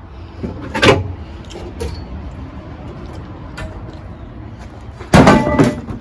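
Sharp metallic knocks from work on a car: one about a second in, a lighter one soon after, and a louder clatter lasting about half a second near the end.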